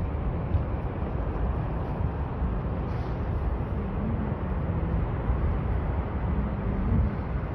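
Steady low rush of the Niagara Falls waterfall, an even noise without breaks.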